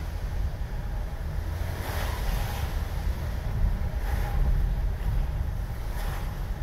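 Car driving on a rain-wet road, heard from inside the cabin: a steady low road rumble with a brief swish about every two seconds.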